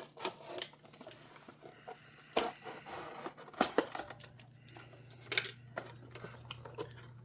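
Mystery-box packaging being handled and opened by hand: scattered clicks, taps and crackles, with sharper snaps about two and a half, three and a half and five and a half seconds in, over a faint steady hum.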